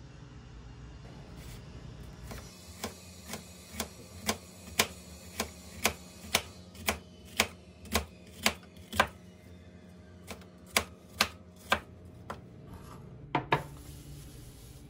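Kitchen knife slicing an onion on a cutting board, each stroke knocking on the board about twice a second, then a short pause and a few more cuts.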